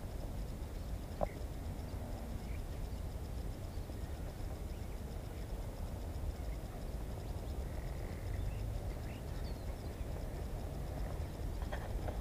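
Outdoor ambience: a steady low rumble of wind on the microphone, with faint, scattered bird chirps and one sharper chirp about a second in.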